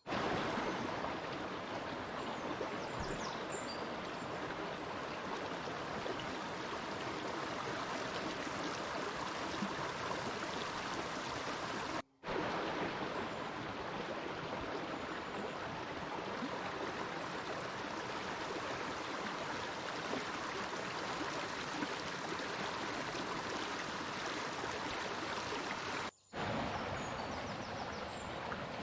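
Steady rush of a flowing stream, broken twice by a sudden instant of silence.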